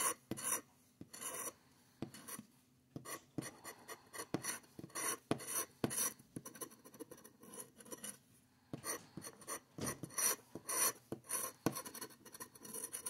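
A red plastic scratcher tool scraping the coating off a lottery scratch-off ticket in many short, quick strokes, pausing briefly about two seconds in and again around eight seconds in.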